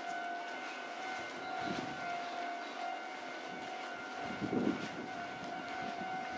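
A steady electrical whine from an electric train at the station, a held tone with a second tone an octave above it, over a low hiss. A brief low rumble comes about four and a half seconds in.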